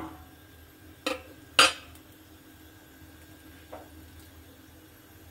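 Metal spatula clinking against an iron tawa while handling a paratha: two sharp clinks about a second in, half a second apart, the second the louder, then a faint tap later.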